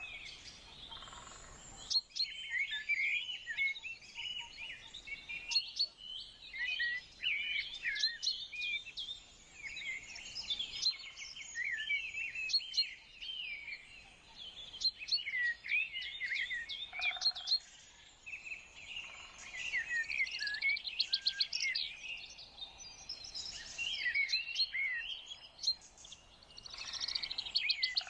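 Wild birds chirping and singing, with short high calls and warbles overlapping almost without pause.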